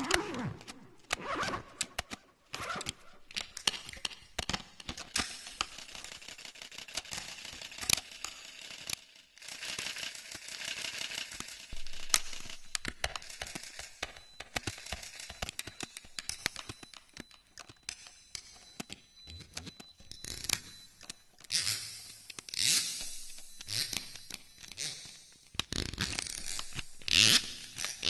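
Canon EOS 77D DSLR camera making mechanical noises: many sharp clicks, irregularly spaced, between stretches of noisy rustle and scraping.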